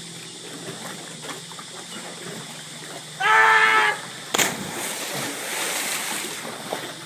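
A person's yell, about a second long and pitched in a single held note, during a jump from a high rock, then a splash just after as they hit the water, with water churning for about two seconds.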